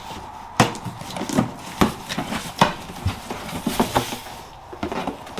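Cardboard box being opened and its contents handled: rustling with a string of sharp knocks and clicks, the loudest about half a second in, just under two seconds in, and about two and a half seconds in.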